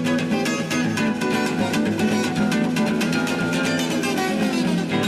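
Background music: acoustic guitar strummed fast in a quick, even rhythm.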